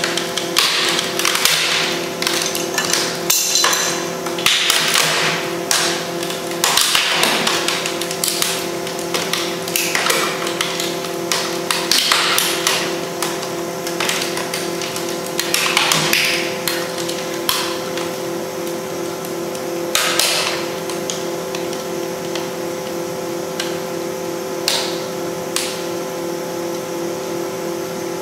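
Camcorder's plastic housing cracking and snapping as it is slowly crushed in a compression testing machine, over the machine's steady hum. The cracks come thick and fast at first and thin out to a few isolated snaps in the last third.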